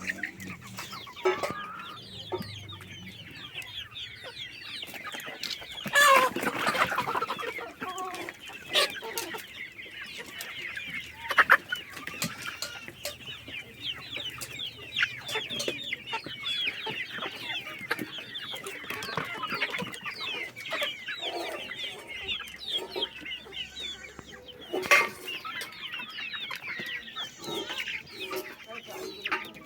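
A flock of Kadaknath chickens clucking and chirping continuously, many short calls overlapping, with a few louder calls standing out about six seconds in, near the middle and near the end.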